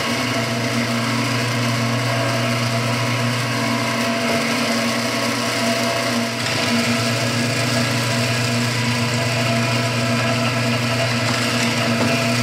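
Electric power tool motor running steadily at constant speed, a strong hum with a high whine over it, dipping briefly about halfway through.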